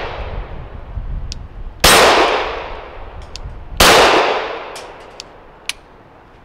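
Two 9mm pistol shots from a nickel-boron-coated Glock 19, about two seconds apart, each ringing out in a long echo. A few light clicks follow near the end.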